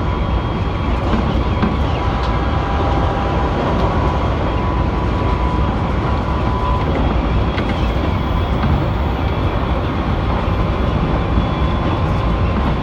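Keikyu limited express train running along the line, heard from inside the passenger car: a steady rumble of wheels on rail with a faint steady whine above it.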